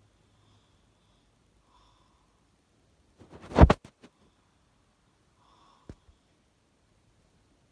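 A sleeping person snoring: one loud snort that builds for about half a second and cuts off sharply, about halfway through, with a faint click a couple of seconds later.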